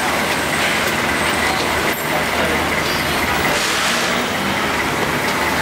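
Steady, loud rushing noise with no clear rhythm or tone.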